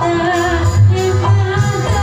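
Sundanese kawih song performed live: a woman's voice singing a wavering, ornamented melody over amplified band accompaniment with drums.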